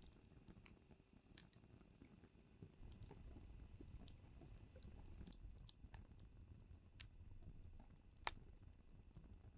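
Small wood fire in a fire pit crackling, with sparse sharp pops; the loudest pop comes near the end.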